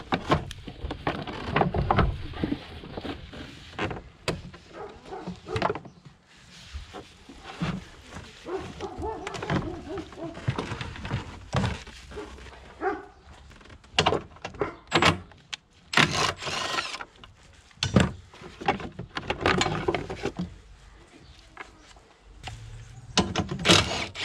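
Irregular knocks, clunks and plastic clatter as a car battery is lifted out of a diesel engine bay by hand and the battery tray area is worked on. One longer scraping sound comes about two-thirds of the way through.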